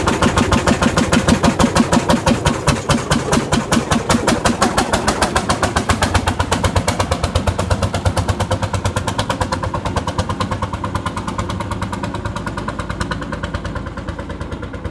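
Lanz Bulldog tractor's single-cylinder two-stroke hot-bulb engine running with its rapid, even thump as the tractor pulls away, growing fainter as it moves off.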